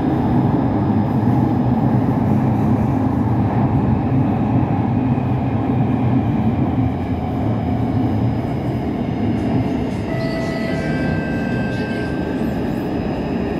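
SMRT C151 metro train running, heard inside the passenger car: a steady low rumble of wheels on the track. From about ten seconds in, a few short steady whining tones at several stepped pitches from the traction equipment join the rumble.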